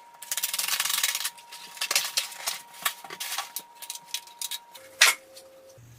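Rubbing and scraping from handling a replacement window and its trim: about a second of steady scraping, then a string of light clicks and knocks, and one sharp knock near the end.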